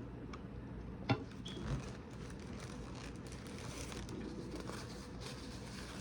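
Small clicks and rustles of food and utensils being handled over a low steady room hum, with one sharp click about a second in and a softer knock just after it.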